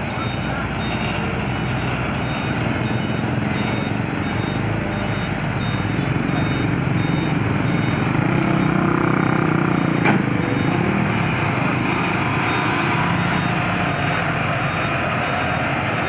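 Hino 500 tractor unit's diesel engine running as it reverses a loaded semi-trailer, with its reversing alarm beeping about twice a second. The engine grows louder in the middle, and there is one sharp click about ten seconds in.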